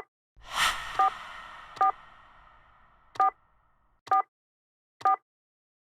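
Short two-tone beeps like a phone keypad's tone, the same key each time, sounded six times at uneven intervals. About half a second in, a noisy swell rises and fades away slowly over about three seconds.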